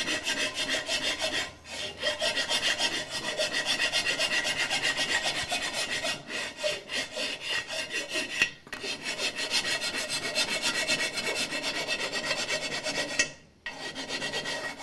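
Hand file rasping back and forth in rapid strokes over the welded repair on an aluminum wheel, levelling the weld down to the rim surface. The strokes pause briefly a few times, longest near the end.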